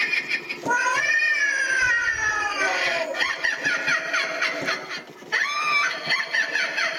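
Haunted-house sound effects: eerie, wailing, yowling voices that slide up and down in pitch, with a short break about five seconds in.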